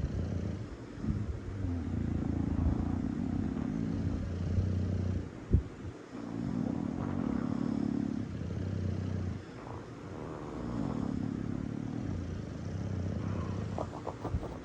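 Bulldogs snoring: low snores drawn out over one to a few seconds each, breath after breath, with one sharp click about five and a half seconds in.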